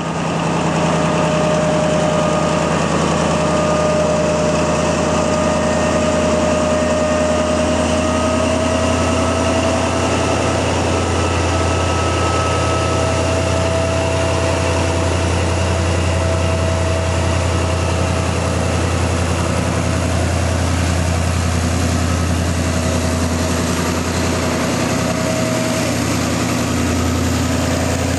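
Diesel-electric locomotive idling steadily: a constant low engine hum with a thin whine above it.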